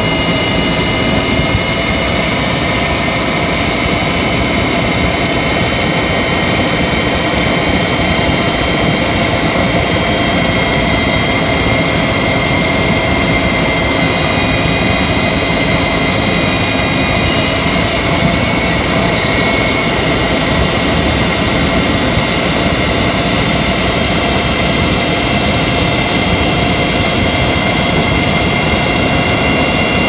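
Honda Insight (third-generation i-MMD) hybrid drivetrain heard from inside the engine bay while cruising steadily in Hybrid Drive mode: the engine runs to drive the generator, under steady high-pitched electric whines from the motor and inverter.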